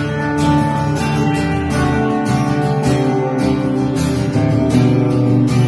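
Live instrumental passage of an original song: an acoustic guitar strummed in a steady rhythm, with an electric lead guitar playing along and no vocals.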